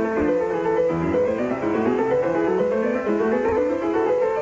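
Solo piano playing a classical piece, several lines of notes moving at once in quick steps.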